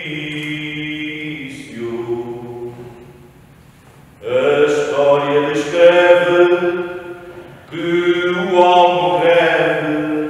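Cante alentejano choir singing unaccompanied in slow, long-held phrases of several voices together. A phrase fades to a short quiet gap, then the whole group comes in loudly about four seconds in, breathes briefly near eight seconds, and sings on.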